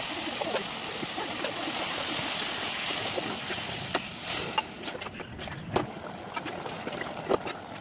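Spiced mutton sizzling as it fries in an aluminium pot, a steady hiss. About halfway through the hiss drops, and a ladle stirring the gravy knocks sharply against the pot a few times.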